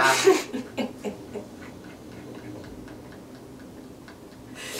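A short burst of laughter at the start, then quiet breathy giggling with a faint, rapid, regular ticking of about five ticks a second.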